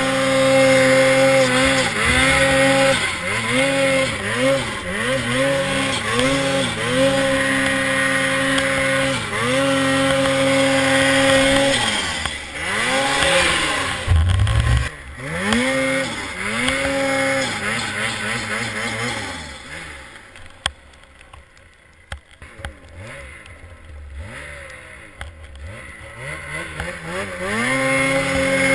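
Ski-Doo Freeride 850 turbo two-stroke snowmobile engine revving hard in deep snow. The throttle is blipped over and over, so the engine pitch dips and climbs many times. About two-thirds of the way in it falls much quieter for several seconds, then revs back up loudly near the end.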